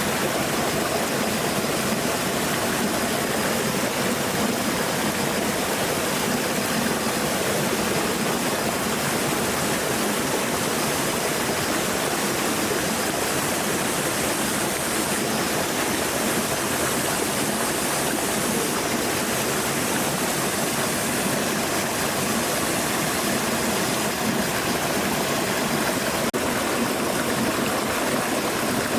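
Stream water flowing steadily, a continuous even rush.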